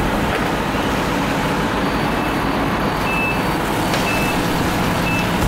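Steady rumbling noise of a house-fire scene with fire trucks standing by. Four or five short, high electronic beeps start about two seconds in and come at uneven gaps, one held a little longer.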